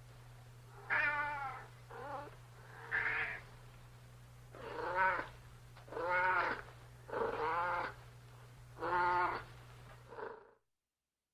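Domestic cat meowing repeatedly, about eight drawn-out meows of varying length and pitch, over a steady low hum. The sound cuts off abruptly near the end.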